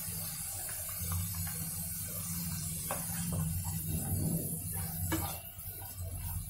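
Wooden spatula stirring and scraping a wet tomato masala in a non-stick frying pan, with a few light knocks against the pan over a steady low hum.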